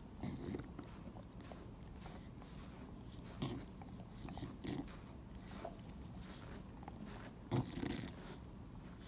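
Chow Chow chewing and licking, a handful of short, separate mouth sounds spread a second or more apart, the loudest a little before the end.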